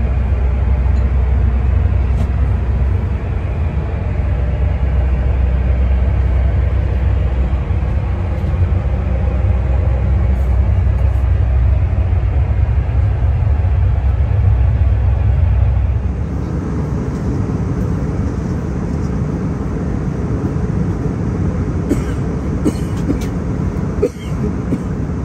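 Steady, heavy low rumble of an Airbus A319's engines and airflow heard inside the cabin. About two-thirds of the way through the deep rumble drops away abruptly and a thinner, hissier cabin noise takes over, with a few light clicks near the end.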